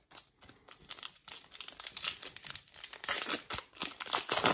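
Foil wrapper of a Topps baseball card pack being torn open and crinkled by hand, a run of sharp crackles that is loudest about three seconds in and again near the end.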